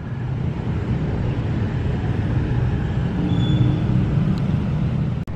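Steady low rumble of vehicles, broken off for an instant about five seconds in.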